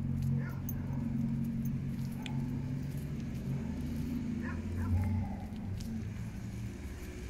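A dog whimpering and yipping in short high cries, twice, over a low steady hum.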